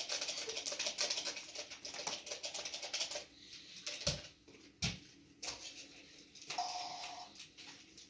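Rapid run of small plastic clicks, about ten a second, from a toy dinosaur figure being worked in the hands, dying out about three seconds in. Then two sharp thumps about a second apart, and a short high tone near the end.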